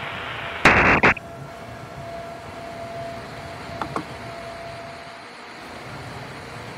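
Steady hiss of an open phone line carrying a caller's car-cabin background noise, with a short loud burst of static under a second in and two faint clicks near the middle.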